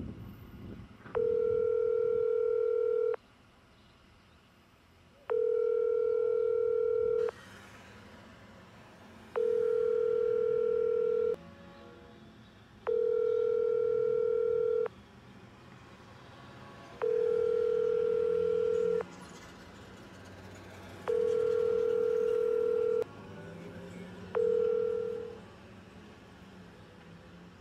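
Telephone ringback tone heard through a payphone handset while a call goes unanswered: six steady rings, each about two seconds long with about two seconds between them, and a seventh ring cut short near the end.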